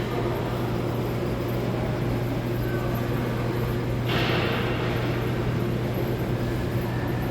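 Broomball game ambience: a steady low hum under a constant background of play, with a sudden burst of noise about four seconds in that fades away over a couple of seconds.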